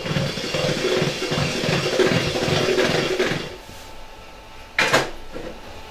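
Electric stand mixer running for about three and a half seconds with a steady motor hum and a rhythmic low churning, then stopping. A single sharp clunk follows about five seconds in.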